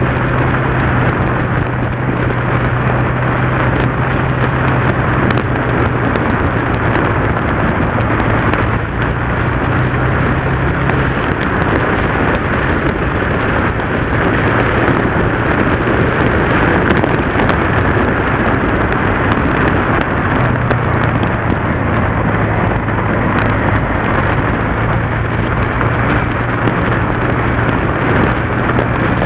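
Yamaha TDM motorcycle's parallel-twin engine running at a steady cruise, a low drone that eases off for a stretch in the middle, with heavy wind rushing over the microphone.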